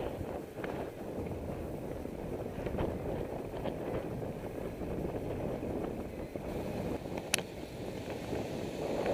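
Steady rush of wind on the microphone and rumble of a bicycle rolling along a paved path, heard from a camera mounted on the bike. A few faint rattles, and one sharp click about seven seconds in.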